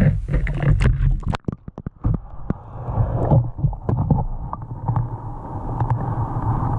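Underwater camera lowered through an ice-fishing hole. At first come sharp handling knocks and water sloshing at the hole. About a second and a half in the level drops briefly, then the sound turns to the muffled hum of the microphone under water, with scattered clicks and bumps.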